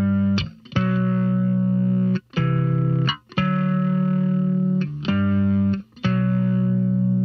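Background music: long held chords, each cut off and restarted after about a second.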